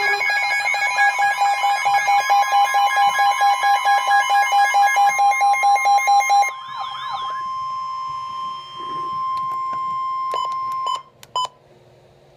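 Emergency Alert System alarm tones: a rapid pulsing alarm with a warbling siren over a steady high tone. The pulsing and warble stop about halfway through, the steady tone holds a few seconds longer and cuts off, and a few clicks follow.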